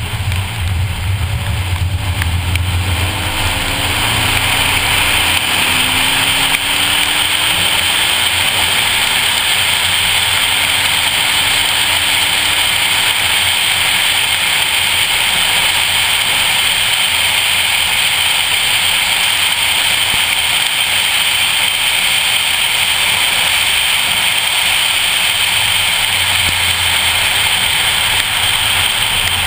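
2014 Ford Focus ST's turbocharged 2.0-litre four-cylinder heard inside the cabin, accelerating out of a corner on a wet track, its pitch rising in a few short runs through the first several seconds. After that a steady loud rush of wind and tyre noise on the wet surface dominates, and the low engine note comes back near the end.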